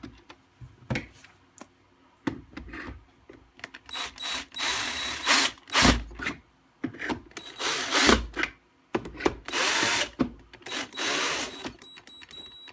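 Power screwdriver driving screws in several short runs starting about four seconds in, with clicks and knocks of plastic parts being handled before and between.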